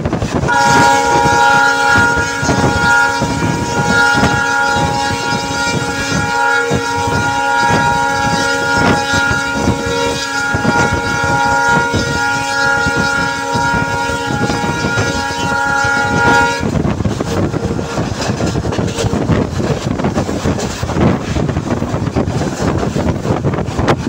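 WDP4D diesel locomotive horn sounded in one long continuous blast as the express runs through a station without stopping; it cuts off abruptly about two-thirds of the way through. Under it and after it, wind rushes over the microphone and the wheels clatter over rail joints.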